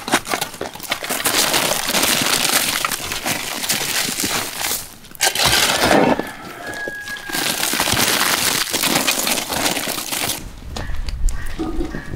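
Shovelfuls of hot charcoal and ash tipped onto foil-wrapped parcels in a brick fire pit: lumps of charcoal rattling and clinking as they fall, with the metal shovel scraping through the embers. The clatter stops near the end, leaving a low rumble.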